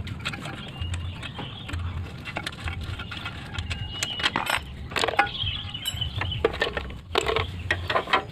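Light metallic clicks and clinks of hands handling the carburetor and throttle linkage of a GX200-type engine, coming thicker in the second half.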